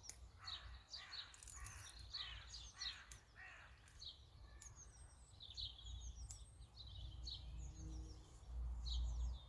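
Small birds chirping with quick, repeated short notes throughout. Several brief rustles in the first few seconds, and a low rumble rises near the end.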